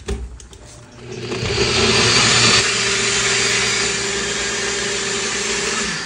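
Countertop blender motor running steadily, a loud whir with a high whine, blending a cream sauce with onion and garlic that had not fully blended down. It starts about a second in, after a few knocks.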